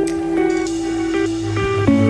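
Instrumental background music of held notes, with a change of chord near the end.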